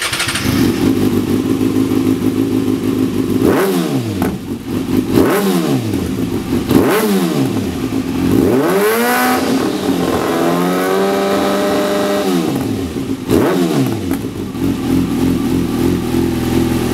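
A Kawasaki ZX-6R (2014) inline-four engine running through a Lextek GP1 silencer, idling and being revved. There are about five quick throttle blips that rise and fall back to idle, plus one rev held steady at higher rpm for about two seconds just after the middle.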